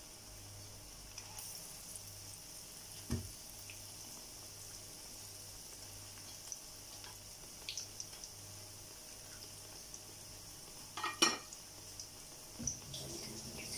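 Battered banana pieces deep-frying in a small pan of hot oil: a steady soft sizzle, with a few sharp clicks and taps, the loudest about eleven seconds in.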